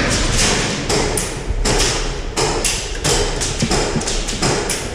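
Airsoft gunfire in close-quarters play: a run of sharp, irregular cracks and knocks, several a second, from shots and BBs striking cover.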